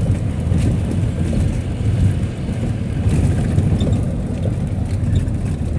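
Steady low rumble of a moving vehicle's engine and tyres on the road, heard from inside the passenger cabin.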